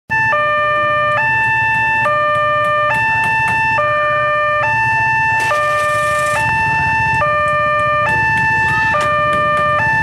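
Railway level-crossing electronic warning siren sounding a two-tone hi-lo alarm, switching between a higher and a lower tone a little more than once a second, with a tinny ('cempreng') sound.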